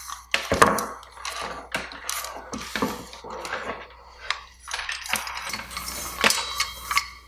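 Stainless-steel cable spool of a TP7-D gauging thermometer being turned by hand to unwind the probe cable: irregular metallic clicks, rattles and knocks, with a few sharper strikes.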